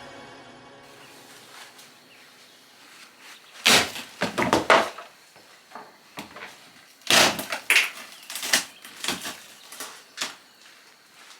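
The tail of background music fades out, then sharp knocks and clatters come in irregular clusters about four seconds in and again about seven seconds in, with single knocks after.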